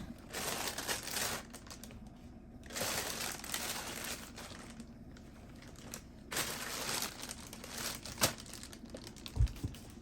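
A bag crinkling and rustling in several bouts as sweet potatoes are handled and put into a hanging basket, with a soft thump near the end.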